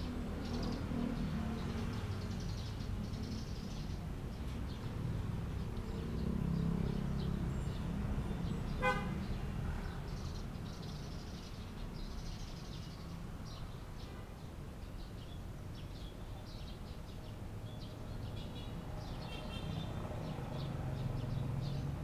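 Small birds chirping in short, scattered high notes over a steady low rumble of distant traffic, with one brief vehicle horn toot about nine seconds in.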